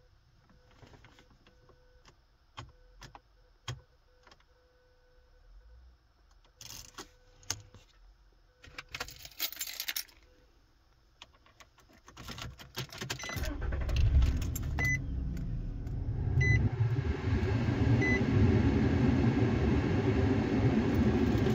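Keys jangling and clicking at a Nissan's ignition for about twelve seconds, then the engine cranks, starts and settles into a steady idle while a dashboard chime beeps several times. This is a newly cut key being tried in the ignition, and it starts the engine.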